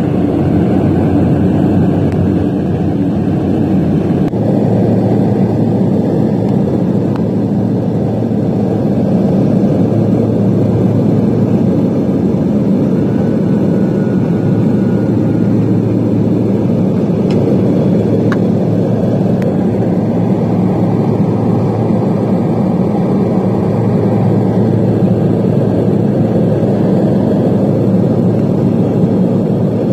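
Airliner's engines running steadily, heard inside the passenger cabin as the plane descends toward landing: an even noise with a low steady hum.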